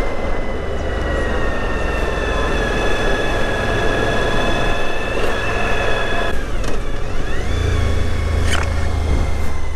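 2014 Suzuki V-Strom 1000's V-twin engine running at road speed, heard from the saddle with heavy wind noise. About two-thirds of the way through, the engine note drops and then climbs again, and there is a sharp click near the end.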